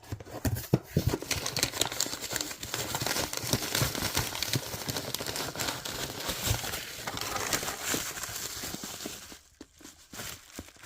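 A mailed package being opened by hand: the packaging crinkles and rustles continuously, with some tearing, and pauses briefly near the end.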